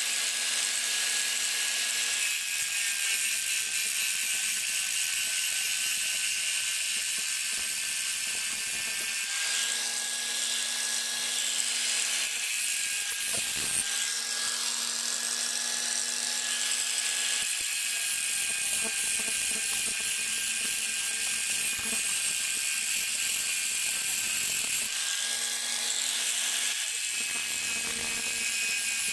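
Electric angle grinder with an abrasive disc running at a steady high whine while grinding a steel scissor blade, the grinding hiss changing as the disc is pressed onto and lifted off the metal, with one short knock about halfway through.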